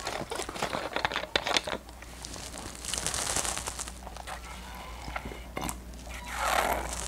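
Plastic drink bottle crinkling and its cap clicking as it is twisted open, a quick run of sharp clicks, then drinking from the bottle with a couple of louder noisy swallows near the end.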